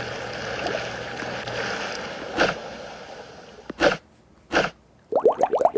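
Running-water bath sound, a steady rush that fades away over about three seconds. A few short splashes or taps follow, then near the end a quick run of rising bubbly blips.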